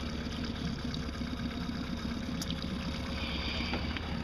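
Small Mercury outboard motor idling steadily at trolling speed, a continuous low drone.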